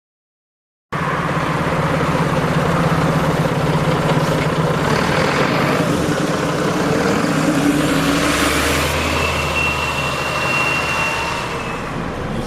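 Scania L94UB Wright Axcess Floline single-deck bus running, a steady engine drone with road noise that starts abruptly about a second in. Past the middle a high-pitched screech holds for about three seconds.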